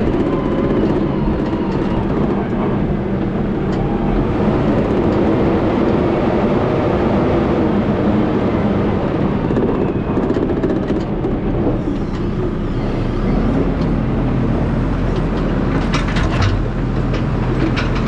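Diesel engine of heavy farm machinery running steadily, with a few knocks and clanks near the end.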